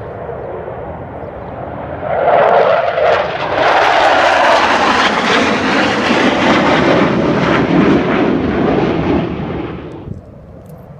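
Thunderbirds F-16 fighter jets flying past low in formation. The jet noise swells sharply about two seconds in and stays loud, its rumble dropping in pitch as they pass, then fades and cuts off suddenly near the end.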